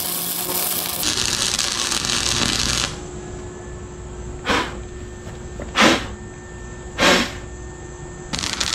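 Wire-feed welder arc crackling and hissing as steel gussets are welded onto a bracket. One run of about three seconds is followed by three short bursts under a second each, like tack welds, and another crackling run begins near the end, over a faint steady hum.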